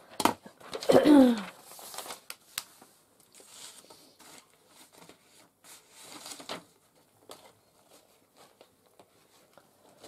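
Sheets of paper rustling and crinkling as they are handled, with scattered light clicks. About a second in there is a short, louder voice-like sound falling in pitch.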